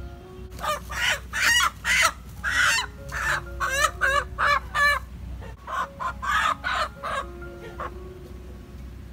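A hen squawking loudly and repeatedly in distress as it is caught from under a bamboo cage and held, in two bouts with a short pause between them. Soft background music with held notes runs underneath.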